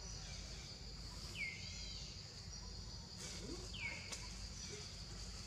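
Outdoor ambience: a steady insect buzz, with a bird's short call sweeping down in pitch twice, about two and a half seconds apart, over a low background rumble.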